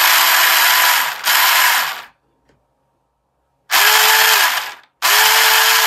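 The small stock electric motor of a cheap RC boat, run out of the water on an ESC, in four short throttle bursts of mechanical noise, each with a steady whine. The first pair is on a 2S LiPo at a lower pitch. The second pair comes after a short pause on a 3S LiPo, at a higher whine: the higher voltage spins the motor faster.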